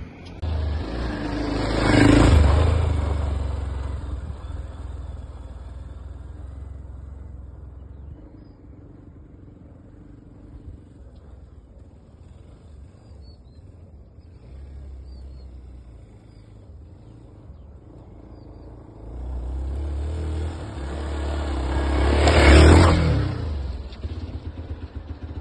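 Hero XPulse 200 4V motorcycle's single-cylinder engine revving as the bike rides past twice, once about two seconds in and again near the end. Each pass swells up and then fades away.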